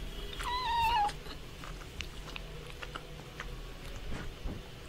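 A cat meows once, a single short high cry about half a second in that bends up slightly at its end, followed by a few faint scattered clicks.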